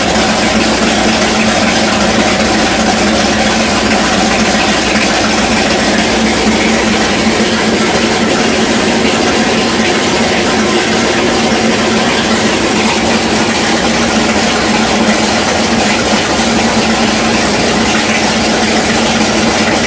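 Boat's inboard carbureted V8 with open headers (zoomie exhaust pipes) idling steadily and loudly.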